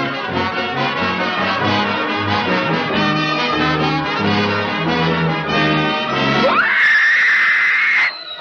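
Brass-led orchestral cartoon score playing a fast run of notes over a moving bass line. About six and a half seconds in, the music gives way to a sound that sweeps sharply up in pitch and holds a high, hissy tone for about a second and a half, then cuts off suddenly.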